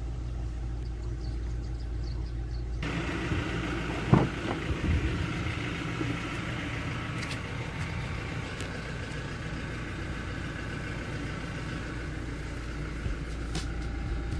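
Toyota Fortuner diesel engine idling steadily as a low hum. A louder background hiss comes in about three seconds in, and about four seconds in there is a loud clunk with a few smaller knocks, the side door's handle and latch being worked.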